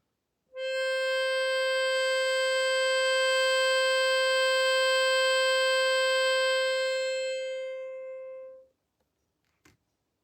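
A single musical note held steadily for about eight seconds, rich in overtones, thinning out before it stops. A faint click follows near the end.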